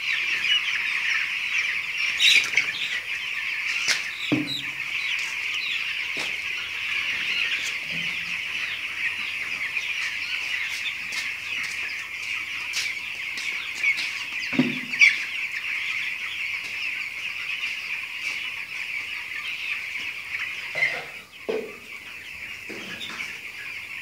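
A large flock of young broiler chicks peeping all together, a dense, continuous high-pitched chorus, with a few short knocks now and then.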